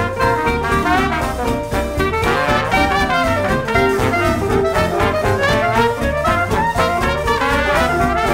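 Background music: brass-led jazz in a swing style, horns playing over a steady beat.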